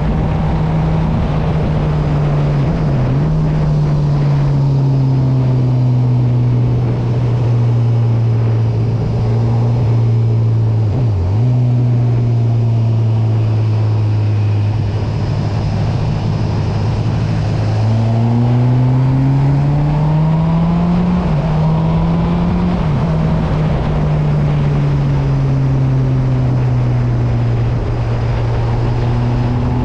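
Honda CB1000R's inline-four engine running steadily under way. Its note dips briefly twice, rises smoothly about two-thirds of the way through, then settles back to a lower, steady pitch.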